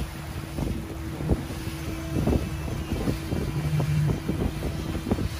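Boat engine running steadily with a low hum, with wind buffeting the microphone and irregular low thumps.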